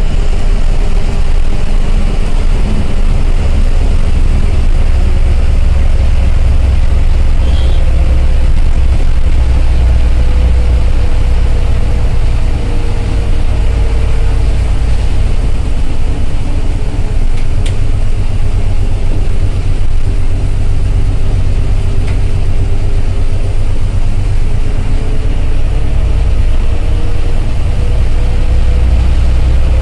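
Ashok Leyland bus's diesel engine running steadily under way, heard from inside the driver's cab: a continuous deep drone, with a whine that sinks slowly in pitch through the middle and rises again near the end.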